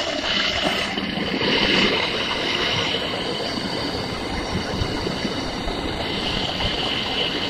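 Tradeflame LPG blowtorch lit and burning steadily, a loud continuous rush of gas and flame that swells briefly about a second in.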